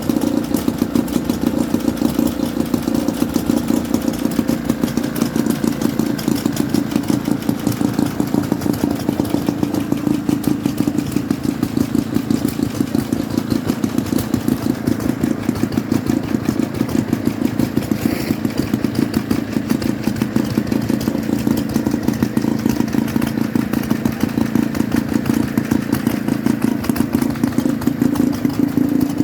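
Small Stuart Turner two-stroke boat engine running steadily on a stand, its exhaust beating at an even, rapid pace.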